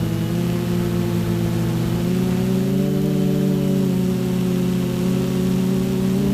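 Hoverthings Flip 6S quadcopter's brushless T-Motor motors and 10x4.5 props whining in flight. The pitch rises about two seconds in, eases off, and rises again near the end as the throttle changes.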